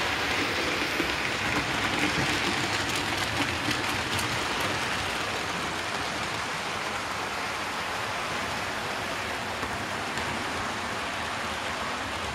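Model trains running on several tracks of the layout: a steady rushing whirr of small wheels and motors on the rails, a little louder in the first few seconds, with a few faint clicks.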